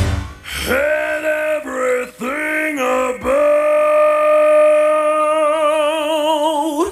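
A lone rock singing voice with the band dropped out: a few short sung phrases that slide down at their ends, then one long held note that takes on a wide vibrato and swoops up as it cuts off near the end.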